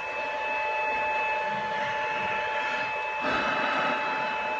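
Steady electric whine and hum of the lathe's VFD-driven motor, several steady tones held throughout, with a short swell of noise about three seconds in.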